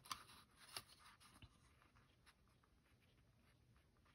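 Near silence, with a few faint taps and rubs from hands shifting a matboard box insert in the first second or so.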